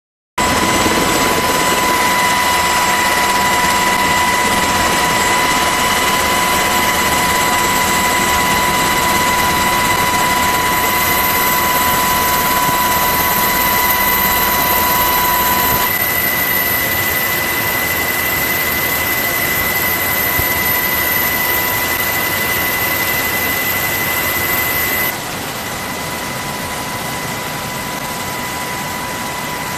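SH-60 Seahawk helicopter heard from inside its open-door cabin in flight: a loud, steady rush of rotor and turbine noise with a steady high whine through it. The level shifts suddenly a couple of times, but no gunfire is heard.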